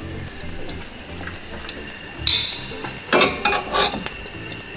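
Metal kitchen tongs clicking and clattering against peppers and the gas stove's grate as the peppers are turned to char over the open flame, with a sharp clack about halfway through and more clatter near the end.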